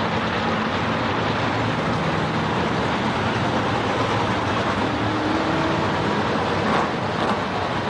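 Engines of a field of dirt late model race cars running together at low speed, a loud, steady mixed drone as the cars pace around the track before the start.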